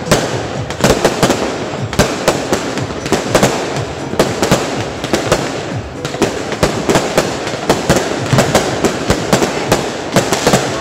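Aerial fireworks bursting overhead in a dense, irregular barrage: many sharp bangs, several a second, over continuous crackling.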